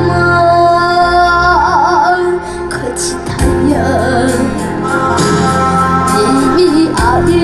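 Korean trot song sung solo with a wide vibrato on long held notes, over a backing band track; the voice breaks off briefly about a third of the way in, then the next phrase begins.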